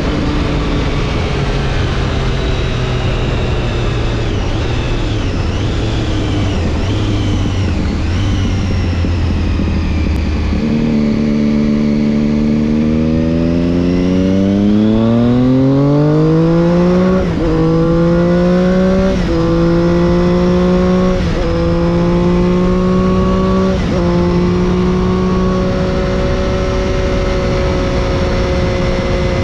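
Triumph Daytona 675 inline three-cylinder engine with Arrow exhaust, heard onboard over steady wind rush. Revs fall for about ten seconds, then jump up with a downshift and climb hard under acceleration. Four quick upshifts follow, and the bike then settles into a steady cruise for the last few seconds.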